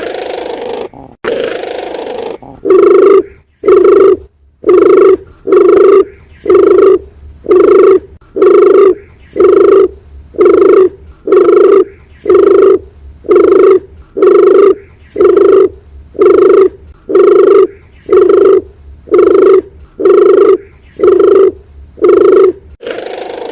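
A dove cooing, one short low note repeated evenly about once a second, some twenty times in a row, after a couple of seconds of hissy noise at the start.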